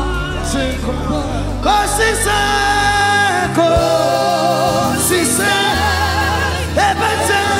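Live gospel worship song: a male lead singer holds long notes with vibrato over band accompaniment with steady bass notes, with backing voices.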